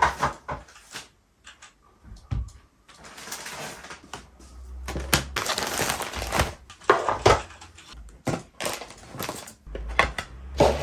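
Plastic bags of soil crinkling and rustling as they are handled and set down on a wooden table, with several knocks and taps of objects being placed.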